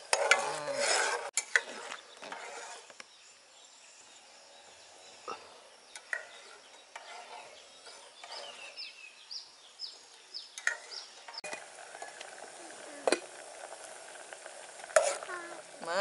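Metal ladle stirring chunks of food in a simmering aluminium pot on a portable gas stove, with a few sharp knocks of the ladle against the pot.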